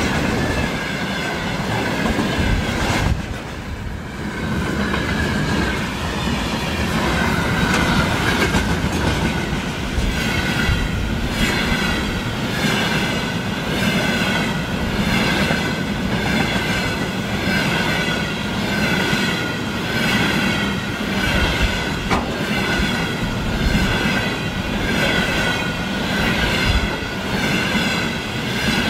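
Freight train wagons rolling past at speed: a steady rumble with the wheels clicking rhythmically about once a second, and a wavering high whine from the wheels on the rails. The sound dips briefly about three seconds in.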